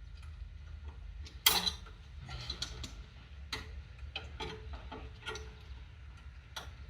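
Irregular metallic clicks and taps of pliers working a cotter pin in the mower's linkage, with one sharper clink about a second and a half in.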